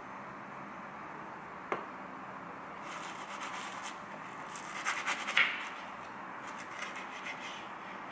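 Knife sawing through a toasted grilled cheese sandwich on a wooden cutting board: a run of short scraping strokes over about four seconds, loudest about five seconds in. A single sharp tap comes just before, a little under two seconds in.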